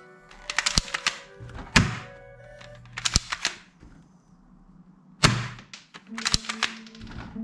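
Toy rifle being handled: clusters of sharp plastic clicks and knocks, with two louder thunks, about two seconds in and again a little past five seconds. Background music with held tones plays underneath.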